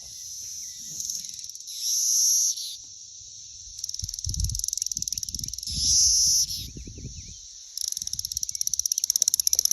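Chorus of cicadas buzzing steadily, with nearby ones swelling into louder, rapidly pulsing calls several times: about two seconds in, again around five to six seconds, and near the end. Low rumbling sits underneath in the second half.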